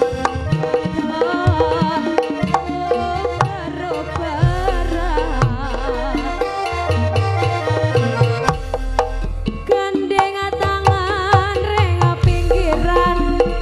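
A female pesinden sings a wavering, ornamented Javanese melody into a microphone over live jaranan gamelan music, driven by kendang hand drums with a deep bass underneath.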